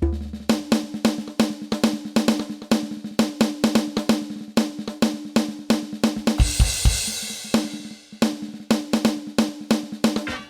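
Yamaha DTX700K electronic drum kit played through its sound module in quick, even strokes, about five or six a second, on a pitched drum voice. About six seconds in, a cymbal-like crash with deep bass-drum hits comes in, then the strokes pause briefly before resuming.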